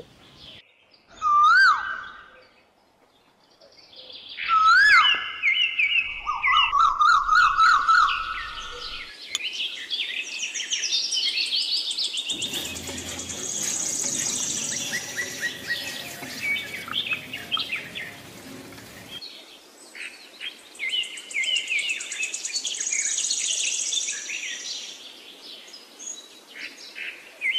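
Birds chirping and singing, with whistled notes that rise and fall and quick trills. From about twelve to nineteen seconds in, a steady noise runs under the birdsong.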